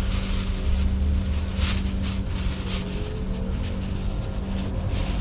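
A motor running steadily in a low, even hum, with wind gusting on the microphone. A few short crinkles come from a plastic carrier bag being tied over a welly boot.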